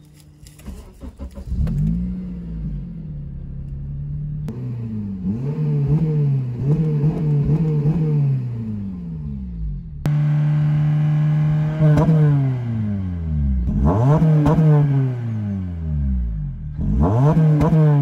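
Honda Civic Type R FN2's 2.0-litre i-VTEC four-cylinder engine cranked on the starter and catching about a second in, flaring up and then settling to idle. From about four seconds in it is revved in a run of short throttle blips, the pitch rising and falling with each one, and later in a few bigger revs. It is heard first inside the cabin and becomes suddenly louder about halfway through.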